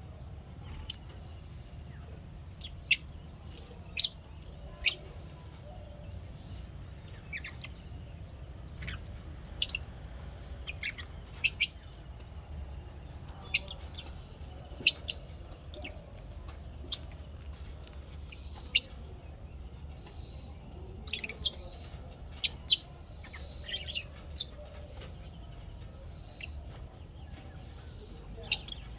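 Lovebirds chirping: short, sharp, high chirps coming singly and in little clusters at irregular intervals, over a steady low hum.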